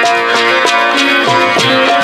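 Instrumental Pothwari folk music: a sitar and a harmonium play a melody of held, changing notes over a steady drum beat of about three strokes a second.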